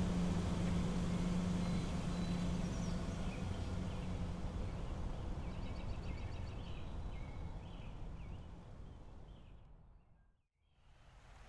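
An SUV driving away, its engine hum fading into the distance, with birds chirping. The whole sound fades out to silence about ten seconds in.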